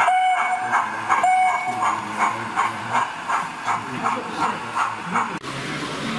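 Sound-fitted 00 gauge model steam locomotive chuffing at an even beat of about three chuffs a second, with two short whistle toots near the start. An abrupt cut near the end gives way to a steady background noise.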